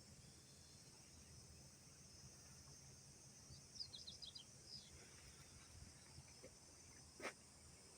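Near silence: a faint steady insect chirring, with a quick run of high bird chirps about halfway through and a single click near the end.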